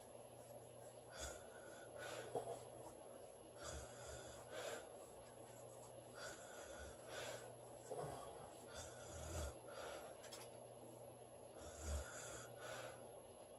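A sleeping woman snoring softly: a steady cycle of noisy breaths, in and out about every two and a half to three seconds, several of them with a short low snort.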